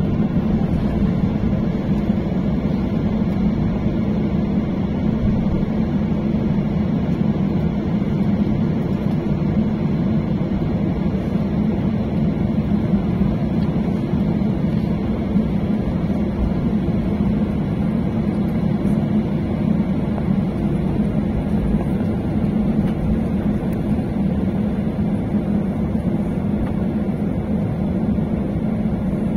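Steady engine drone of a Lion Air airliner taxiing, heard inside the passenger cabin, with most of its weight in a low hum.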